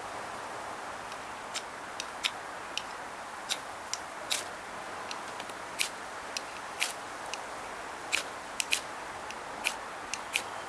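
Newly lit kindling of paper, wood shavings and small sticks under charcoal in a small forge, crackling with sharp irregular pops, about two a second, over a steady hiss.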